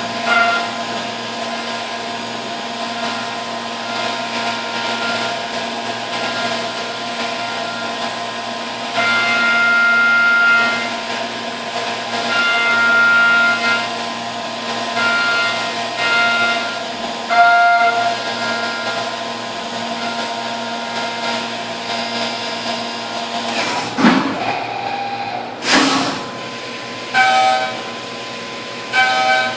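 Brother TC-S2Dn-O CNC mill cutting 6061 aluminium with a carbide endmill under flood coolant: a steady high-speed spindle whine, and the cut grows louder and quieter in stretches as the tool engages. About 24 seconds in come two sharp bursts, a couple of seconds apart, as the machine changes tools. After that, short cutting passes repeat about once a second.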